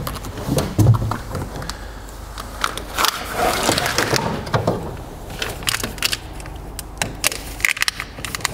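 Wires and split plastic conduit being handled and fed together by hand: irregular rustling, clicking and scraping, with a low thump about a second in.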